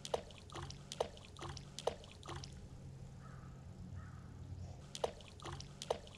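Small stones thrown into a deep, still quarry pool, each landing with a short plop: four in quick succession, then two more near the end.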